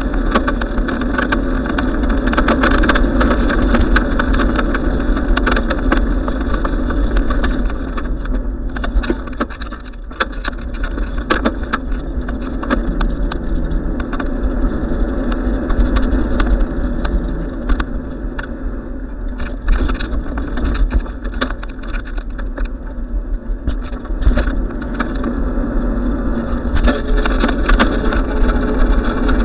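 Riding noise picked up by a bicycle-mounted camera: a steady low rumble and wind on the microphone, with frequent small rattles and knocks as the bike rolls over the pavement.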